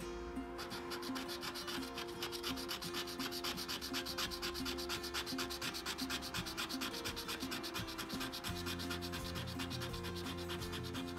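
A coin scratching the coating off a scratch-off lottery ticket in rapid back-and-forth strokes, several a second, starting about half a second in.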